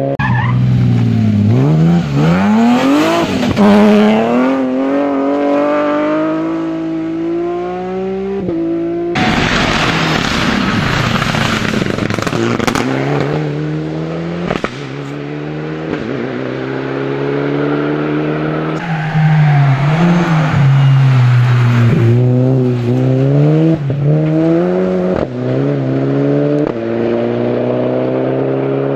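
Rally car engines driven hard, one car after another: each revs up and drops back through quick gear changes.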